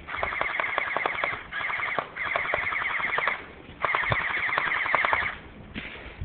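Airsoft M60 machine gun firing on full auto in four bursts of rapid, evenly spaced shots, the longest about a second and a half, with short pauses between them.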